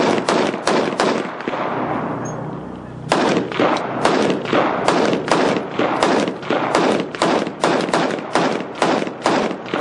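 Rapid gunfire: a short string of shots, a pause of about two seconds, then continuous fire at roughly four shots a second from about three seconds in.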